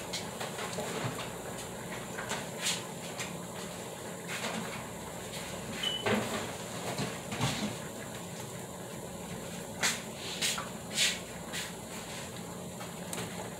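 Occasional knocks and clunks of someone moving about a kitchen, fetching things, over a steady low background hum. The louder clunks come in a cluster about ten seconds in, as a plastic jug of cooking oil is brought back to the stove.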